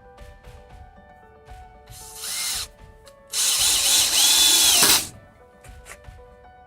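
Hamilton Ultimate cordless drill run twice: a short burst, then a longer, louder run of about a second and a half. Each time the motor whine climbs as it spins up and drops as it stops. Background music plays underneath.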